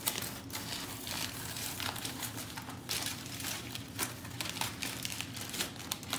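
Aluminium foil crinkling and crackling in irregular bursts as hands unfold the foil wrapped around a large whole fish.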